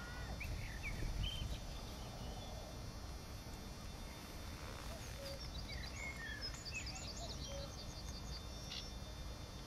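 Small birds singing in scattered short, high chirps, with a quick run of notes about halfway through, over a steady low rumble.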